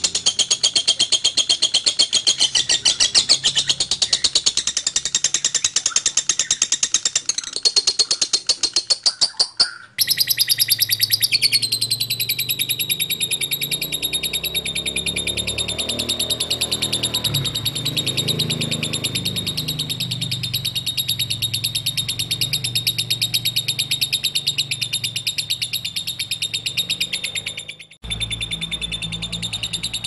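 Lovebird singing a long, rapid, unbroken chattering trill (the 'ngekek' song), high-pitched and continuous. It breaks off abruptly about a third of the way in and again near the end, where one bird's recording gives way to another's.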